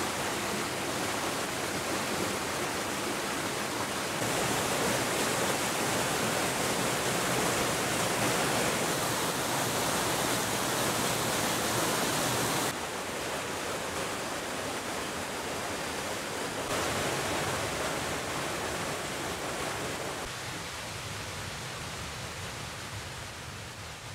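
Mountain creek rushing over small rocky cascades: a steady, even rush of water. The level jumps abruptly a few times and fades near the end.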